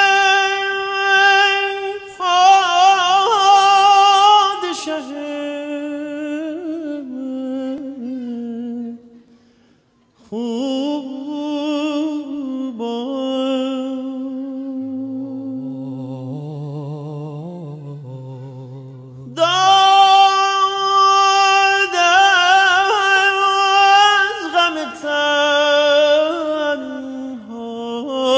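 Wordless vocal introduction to a Persian nohe (Shia mourning lament): a high voice sings long, wavering held notes that slide from pitch to pitch, breaking off briefly about ten seconds in. A low hummed voice sounds beneath it for a few seconds midway.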